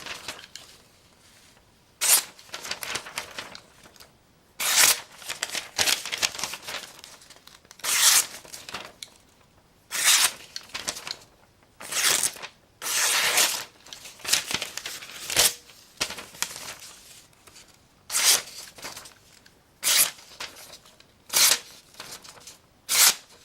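A freshly sharpened carbon-steel Imperial bowie knife slicing through paper in a cut test: about a dozen quick cuts, one every second or two, with paper rustling between them.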